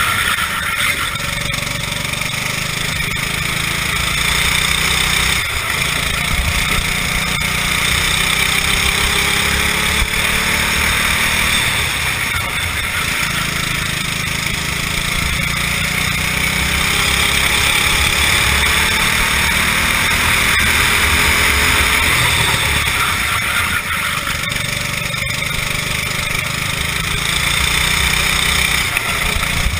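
Racing kart engine at full racing pace, heard from an onboard camera, its pitch rising and falling repeatedly as the kart accelerates and lifts through the corners, under a steady rush of wind noise.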